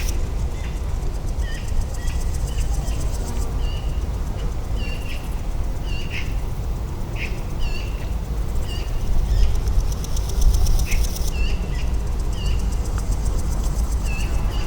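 Small birds giving short, high chirps, repeated every second or so, over a steady low rumble of outdoor ambience. A high, fine buzzing comes in near the start and again in the middle, then stops.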